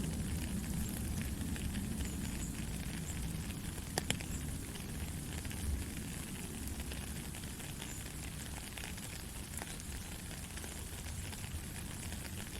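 Steady rain falling, a constant hiss dotted with small drop ticks over a low rumble, with one sharper drop tick about four seconds in.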